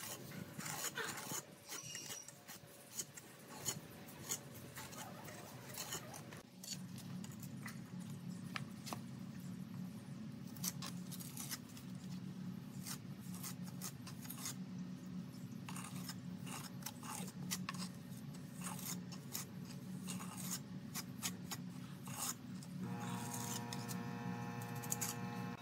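Steel trowel scraping and tapping on wet cement, a run of short scrapes and clicks as the mortar is smoothed. A low steady hum joins in the background about six seconds in.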